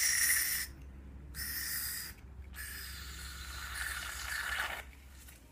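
Aerosol can of TRESemmé styling mousse hissing as foam is sprayed into a palm, in three spurts: a short one ending under a second in, another about a second and a half in, and a longer one of about two seconds near the end.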